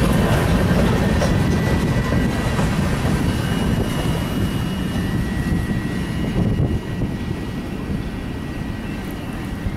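CN freight train's last cars rolling past on the rails: a steady heavy rumble of wheels that slowly fades as the end of the train moves away.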